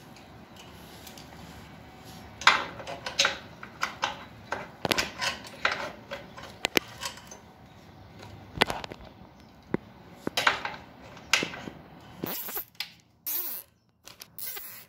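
Irregular clicks, taps and knocks of hand tools and small parts being handled during wiring work. Near the end come a few short, high, hissing scrapes.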